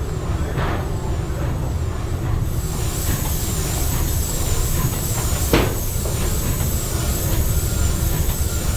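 Steam engine of the 1912 paddle steamer Schönbrunn running at half speed: a steady low rumble of the turning crank and rods, with a faint high whine that rises and falls about once a second. A single sharp knock sounds about halfway through.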